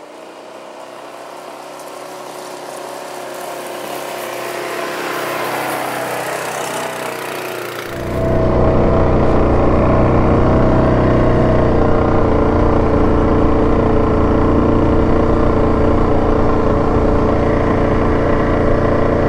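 Yamaha Grizzly 700 ATV's single-cylinder engine approaching from a distance and growing steadily louder, then, from about eight seconds in, heard close up from the machine itself, running steadily at cruising speed.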